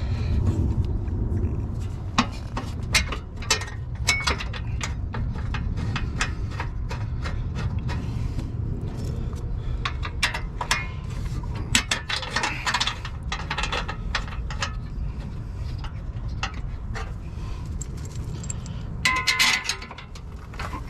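Irregular metallic clicks and clinks of hand tools and bolts being worked, over a steady low rumble.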